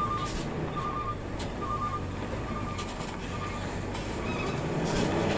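A heavy truck's engine running with a low rumble that grows louder near the end. Over it, a short electronic warning beep repeats about once a second.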